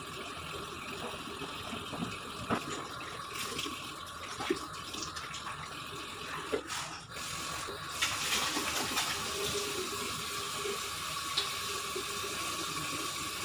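Bathroom sink tap running steadily, water splashing into the basin, with a few small knocks. The water sound gets a little louder about eight seconds in.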